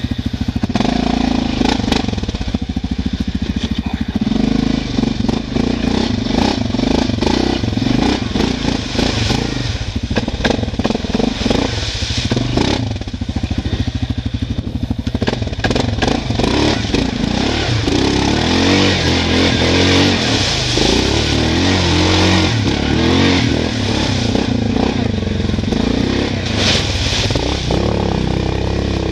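ATV (quad) engine running under load while being driven through a muddy, water-filled ditch, the revs rising and falling, with mud and water splashing around the machine.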